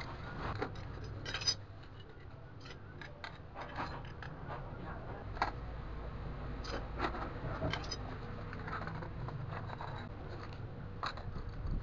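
Irregular light clicks and scrapes from an iron hanging bracket, its chain and a wall clock's case being handled and fitted together, over a steady low hum.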